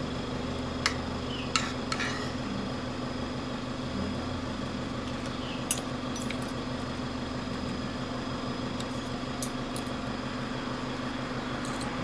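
Cutlery and plates clinking now and then during a meal, a few sharp chinks scattered over a steady background hum.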